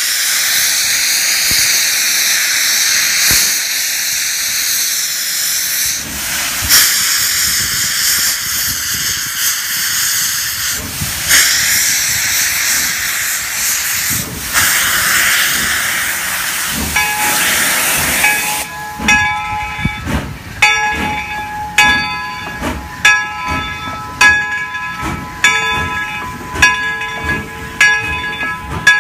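N.C.R.R. No. 17, a 4-4-0 steam locomotive, venting steam in a loud, steady hiss. About eighteen seconds in the hiss gives way to slow, regular exhaust chuffs, about one and a half a second, over a faint steady tone.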